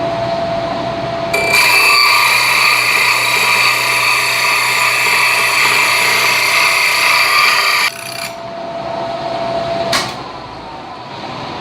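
Drill press running with a round cutting bit that bites into hardwood for about six and a half seconds, a loud, high-pitched cutting whine. It then runs free again, with a sharp click about ten seconds in.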